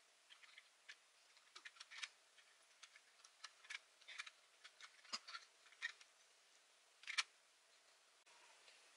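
Faint, irregular taps of a thumb typing on a smartphone touchscreen, with one sharper click about seven seconds in.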